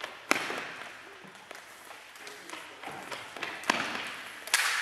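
Floorball sticks and the plastic ball being struck in play: sharp cracks with a hall echo after each. There is one loud crack about a third of a second in and two more near the end, with a few lighter taps between.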